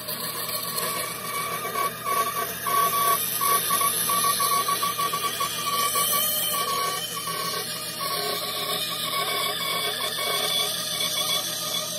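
Band saw running with its blade cutting through a thick basswood block: a steady tone over a continuous rasp of the cut.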